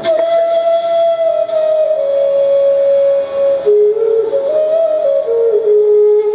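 Bansuri (Indian bamboo flute) playing a slow melody in raga Bhinna Shadja: long held notes that slide down step by step, with a brief rise in the middle before settling on a lower note.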